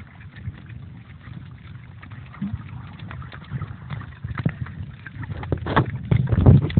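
Muffled water sloshing and rubbing against a phone sealed in a waterproof pouch while snorkelling. Scattered knocks and scrapes from the pouch being handled grow louder over the last two seconds.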